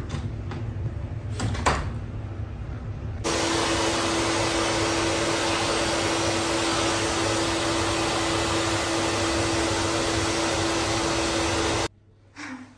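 Skate-sharpening grinder running: a loud, steady whir with a constant hum tone that starts suddenly about three seconds in and cuts off just before the end, after a low rumble with a couple of clicks.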